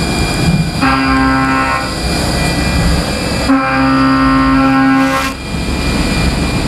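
CNC milling machine cutting an aluminium billet, facing off the stock: a pitched whine that comes on twice for one to two seconds at a time over a steady hiss.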